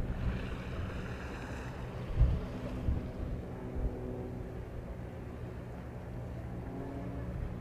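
Wind buffeting the microphone in gusts, strongest about two seconds in and again near three seconds, over a steady low hum.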